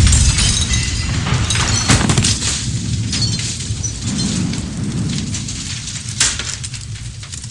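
Heavy gunfire with glass and debris shattering, a dense crackle that slowly dies away, with one sharp crack about six seconds in.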